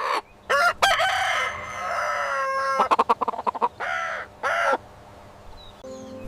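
Rooster crowing: a long drawn-out crow about a second in, followed by a cluster of short calls and two more brief calls.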